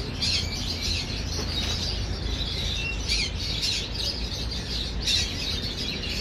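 Caged birds chirping: many short, high chirps again and again, over a steady low background rumble.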